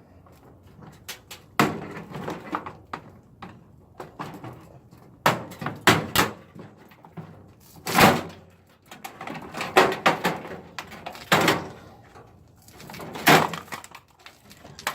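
Scattered knocks, clanks and clicks of metal parts and hand tools being handled while an appliance is stripped for scrap, with several louder knocks spread through.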